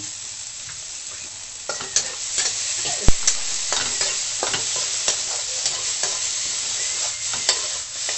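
Onion, garlic, tomato and ginger sizzling in hot oil in a metal wok. From about two seconds in, a metal spatula scrapes and clinks against the pan as the aromatics are stirred, with one sharp knock about three seconds in, the loudest sound.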